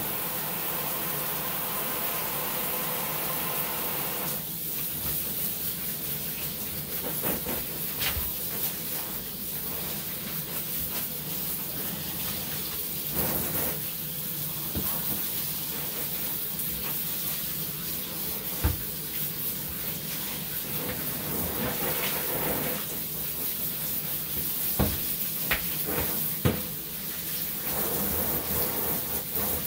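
Handheld shower sprayer running steadily, water spraying onto a wet dog in a bathtub. A few short knocks come in the second half.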